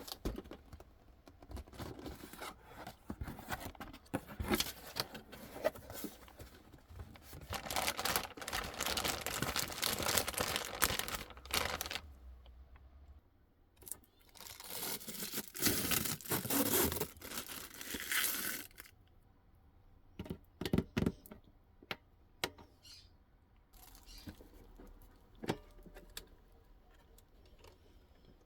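Packaging being opened by hand: plastic and paper rustling, crinkling and tearing, with two louder stretches of tearing and crinkling in the first two-thirds. After that come scattered clicks and light knocks as things are handled.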